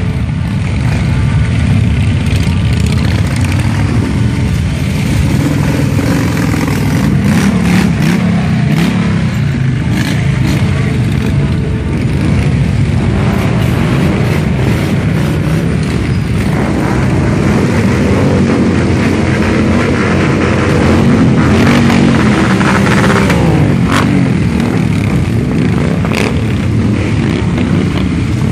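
A string of heavy cruiser motorcycles riding slowly past one after another. The engines rumble steadily, with pitch rising now and then as they are revved, and it gets a little louder about twenty seconds in.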